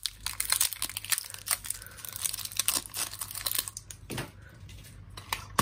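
Crinkling and tearing of the plastic wrapping around a pack of batteries as it is opened. A dense run of small crackles for about the first four seconds, then a few light clicks.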